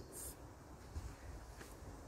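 Faint handling of a picture book being turned round and held up, with a small click or two of the pages, over a low, steady background rumble.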